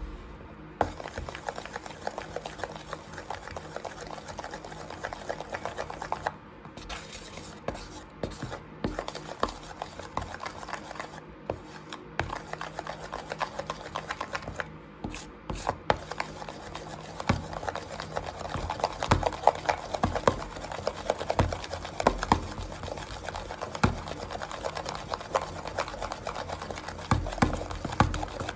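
Thick shampoo-and-baking-soda slime being stirred and pulled with a plastic spoon in a plastic tub: a continuous run of wet squishing with many small crackling clicks, busier and louder in the second half.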